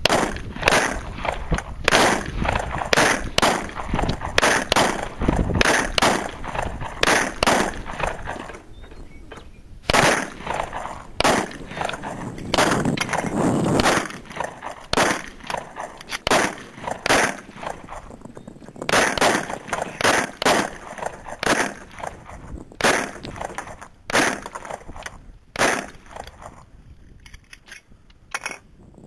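Semi-automatic pistol shots, fired in strings of several at about one to two shots a second, with short pauses between strings. The shots differ in loudness from one to the next.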